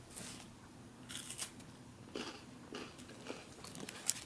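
Crunching and chewing a Cloetta Kex chocolate wafer bar: a string of irregular, short crisp crunches.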